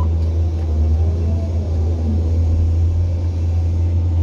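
Caterpillar 345 hydraulic excavator's diesel engine running steadily under working load, heard from inside the operator's cab as a deep, even drone, while the upper structure swings.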